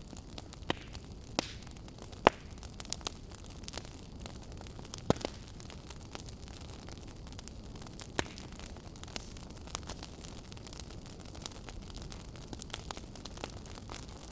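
Wood fire in a fireplace crackling: a steady low rush of burning with irregular sharp pops, the loudest a little over two seconds in and others around five and eight seconds in.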